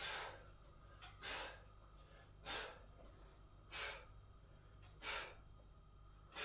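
A man breathing out sharply in a steady rhythm, about one breath every 1.3 seconds, five times, as he works through bodyweight dips on metal dip bars.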